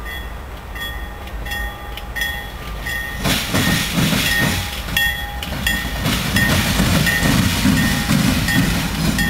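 CSX diesel locomotives running light, with no cars, approach and pass close by. Their low engine rumble and wheel noise swell up about three seconds in. Throughout, a high ding repeats steadily about twice a second.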